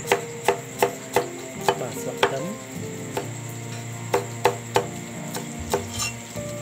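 A large kitchen knife chopping garlic and spring onion on a wooden cutting board: sharp knocks on the board, six in a quick run about three a second, then a pause and three more about four seconds in, with a few lighter taps near the end.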